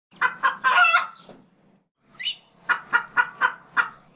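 Rooster crowing once, two short notes and a longer drawn-out one, then after a pause a quick run of about five clucks.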